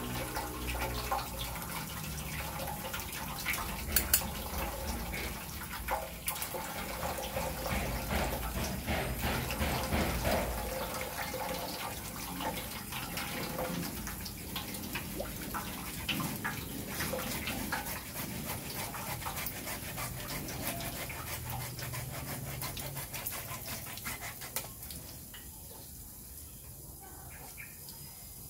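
Faucet water trickling and splashing into a metal basin, with a knife blade scraping and sawing at PVC pipe and scattered clicks. Near the end the water stops and it turns quieter.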